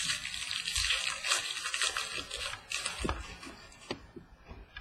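Crinkling and rustling of a trading-card pack wrapper being torn open and handled, a crackly hiss with small clicks that fades out after about three and a half seconds.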